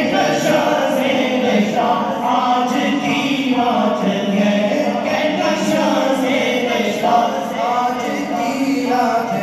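Men's voices chanting an Islamic devotional recitation, a continuous melodic chant without pause.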